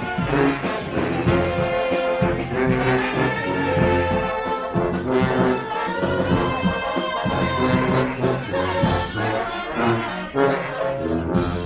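A street brass band playing: trombones and trumpets holding chords over drum strokes.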